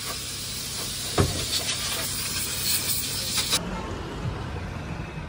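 Steady hiss of a high-pressure cleaning jet at a car wash, with a single knock about a second in. The hiss cuts off abruptly about three and a half seconds in, leaving a quieter low rumble.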